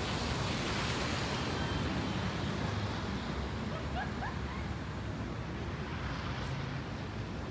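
Steady rumble of city street traffic, with a few short high chirps about four seconds in.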